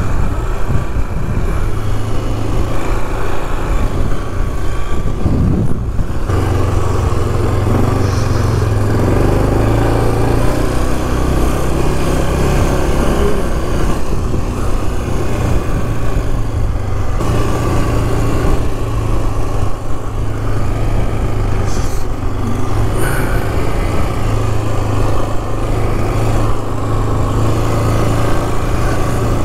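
2008 Yamaha Grizzly 450 ATV's single-cylinder four-stroke engine running steadily while riding along a dirt road, with a few small changes in engine note as the throttle varies.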